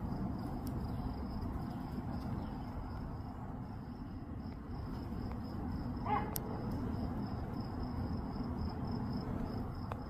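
Faint high-pitched insect trill, pulsing steadily at an even rate over a low background rumble, with one short chirp about six seconds in.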